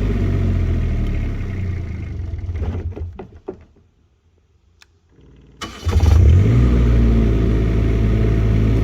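Onan 7.5K diesel generator running steadily, then shut down about two seconds in, coasting to a stop with a few last uneven chuffs. After a moment of near silence and a single click, it is cranked and fires almost at once, a little over halfway through, and settles back into steady running.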